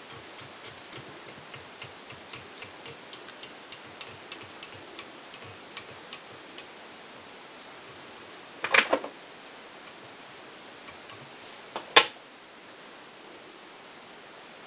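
A run of light, quick clicks, about three a second, then a short louder rattle and one sharp click: small tools and materials being handled at a fly-tying vise.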